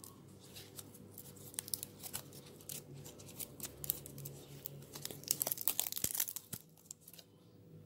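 Fresh pandan leaves being crumpled and torn by hand: a run of sharp crackles and snaps of splitting leaf fibre, busiest from about five to six and a half seconds in.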